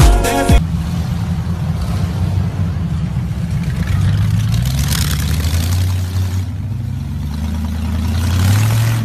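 Rat-rod hot rod's exposed engine running with a low exhaust note, rising in pitch as it accelerates about four seconds in and again near the end. Music with a drum beat cuts off about half a second in.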